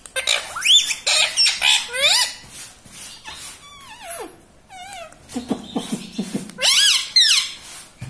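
Male rose-ringed parakeet (Indian ringneck) calling: a run of short, high squawks that rise and fall in pitch, coming in clusters with brief pauses between, and a lower-pitched murmur around the middle.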